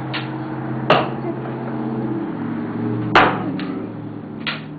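Two sharp knocks about two seconds apart, with a few lighter taps between and after them, over a steady low hum.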